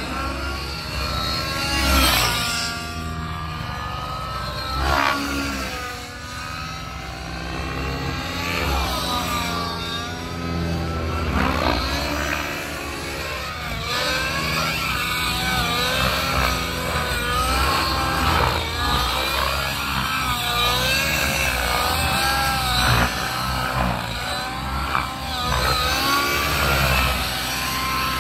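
Radio-controlled helicopter flying aerobatics: its rotor and motor whine sweeps up and down in pitch as it swoops past several times, then warbles quickly up and down as it flips and tumbles in the second half.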